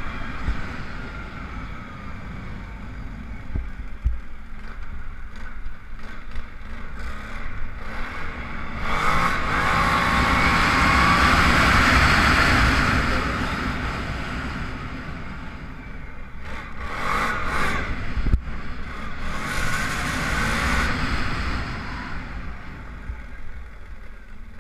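Arctic Cat 1000 XT ATV's V-twin engine running under way. About nine seconds in it accelerates hard, its note rising to the loudest point, then eases off. It picks up again briefly around seventeen seconds and dies down near the end as the quad slows.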